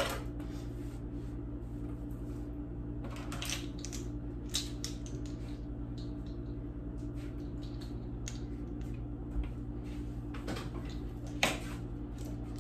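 Scattered light clinks, taps and rustles of utensils and containers being handled at a kitchen counter over a glass mixing bowl, above a steady low hum.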